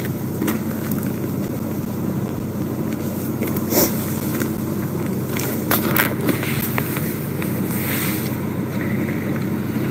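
A vehicle engine idling steadily, a low continuous hum, with scattered clicks and rustles from the phone and clothing being handled close to the microphone.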